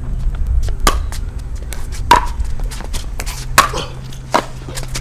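Pickleball paddles striking the hard plastic ball in a rally: sharp hollow pops about a second apart, with many fainter pops from play on neighbouring courts.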